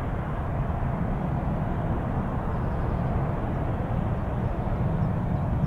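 Steady low rumble of a departing Airbus A350-900's Rolls-Royce Trent XWB jet engines as the airliner climbs away after takeoff.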